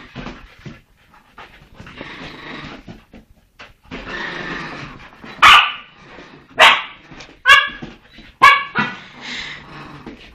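Chihuahua barking: four sharp, high-pitched yaps about a second apart in the second half, after several seconds of softer, noisier dog sounds.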